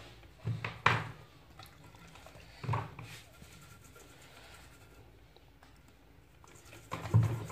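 Handling noise from cleaning the CRT picture tube's anode-cap area with a toothbrush and a bottle of cleaning solvent: soft scrubbing, with three short knocks, about a second in, near three seconds and near the end.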